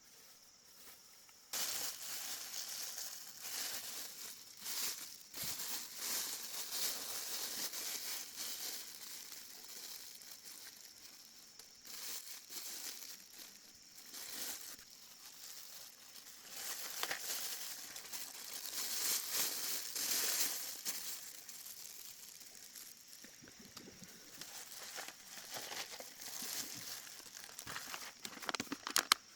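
Irregular rustling and crinkling, coming and going in surges, with a few sharp clicks near the end.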